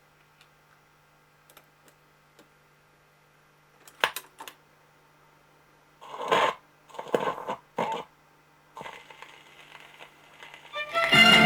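Record player being set up: a few faint clicks over a steady low hum, then a handful of short clacks and knocks in the middle. Shortly before the end the record's music begins, a folk song with guitar and strings.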